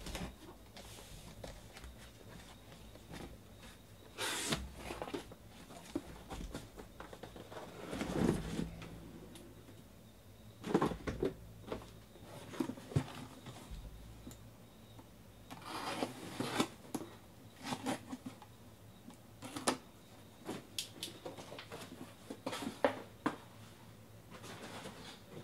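Cardboard boxes being handled: irregular rustles, scrapes and knocks as sealed boxes are lifted out of a cardboard shipping case and set down in stacks.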